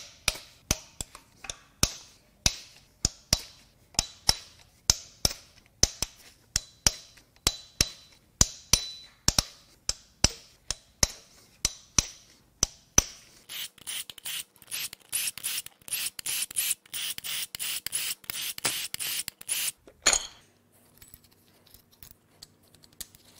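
Hand ratchet loosening cam cap bolts: sharp metallic clicks about twice a second, then about six seconds of quicker, denser ratcheting, ending in a single clunk.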